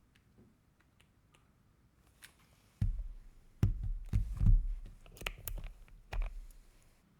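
Irregular knocks, clicks and heavy thuds as the Piifox Walker75 keyboard and its packaging are handled, starting about three seconds in.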